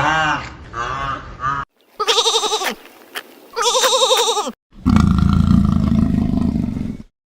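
Animal calls joined by hard cuts: a few short arched calls, then two quavering bleats with a wavering pitch typical of a goat, then one longer low, buzzy call.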